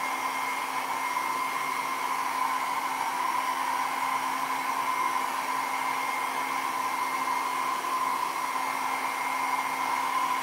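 Handheld hair dryer running steadily, a constant rush of air with a steady hum and whine, blowing over wet alcohol ink on paper.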